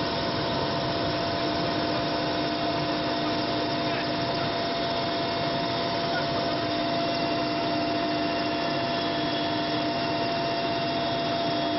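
Aircraft engine and propeller noise heard from inside the cabin: a steady drone with a constant hum.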